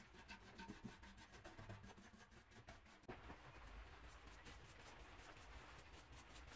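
Faint scratching of a paintbrush working paint stripper over the rusty metal of an old paraffin can, with a light click about three seconds in.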